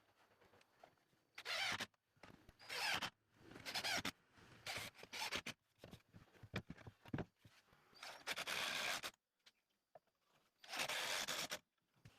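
A series of about seven short scraping, rubbing strokes, each under a second, with small clicks and knocks between them.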